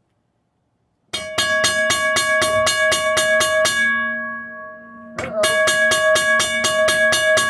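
A 1982 first-generation Western-Cullen-Hayes mechanical railroad crossing bell, ringing loud: its electrically driven hammer strikes the gong about five times a second at a recently sped-up rate. About four seconds in the striking stops briefly and the gong rings down, then the hammer starts again just after five seconds.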